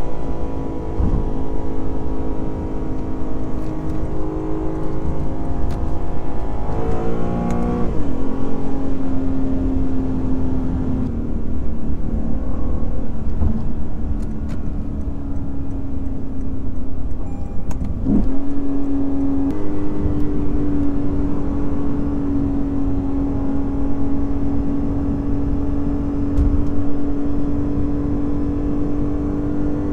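The naturally aspirated 5.0-litre V8 of a Lexus IS500 F Sport Performance pulls at a mostly steady pitch while driving, over low road rumble. Its note drops sharply about seven seconds in and dips briefly then recovers about eighteen seconds in.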